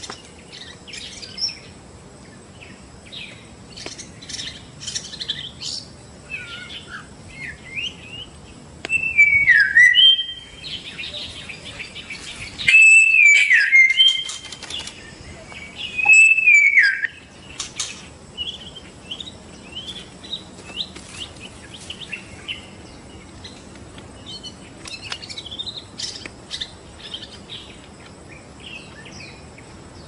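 White-rumped shama (Medan murai batu) singing: a run of short chirps and whistled notes, broken three times near the middle by loud phrases of whistles that slide downward.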